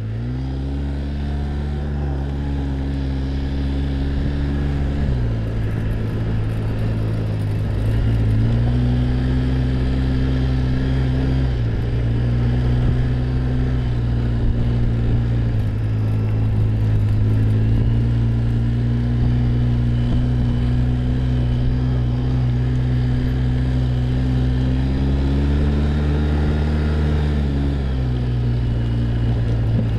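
ATV (quad bike) engine running under way on a gravel trail. It holds a steady note that steps up and down a few times as the rider speeds up and eases off: up at the start, down about five seconds in, up again near eight seconds and later, and easing near the end.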